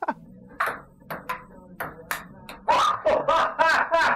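Table tennis ball clicking off paddles and table in a quick rally, with a person's voice in short bursts over the later hits.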